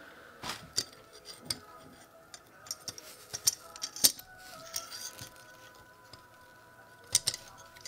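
Scattered small clicks and clinks of steel frame screws and a 2 mm hex driver against carbon-fibre frame plates as the screws are fed through and started by hand.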